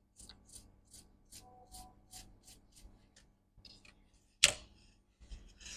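A small brush scrubbing a laptop logic board, in short, even strokes about three a second, then a single sharp click about four and a half seconds in and a brief hiss near the end.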